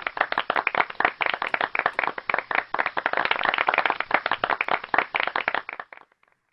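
Applause: many hands clapping in a dense patter that stops abruptly about six seconds in.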